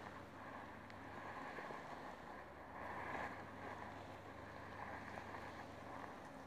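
Faint steady background hiss with a low hum underneath: room tone, with no distinct event.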